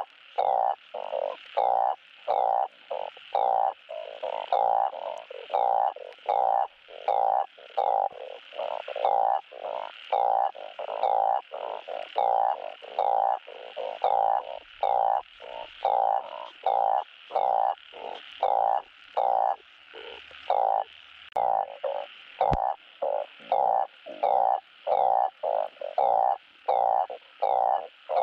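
Balloon frog (Glyphoglossus molossus) calling: short croaks repeated in quick succession, about one every half second. This is the male's mating call, given to attract a female for breeding.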